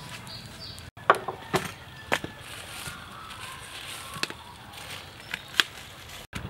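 Wood and charcoal fire in a clay stove under an empty wok, giving a handful of sharp, irregular pops and cracks over a low steady background.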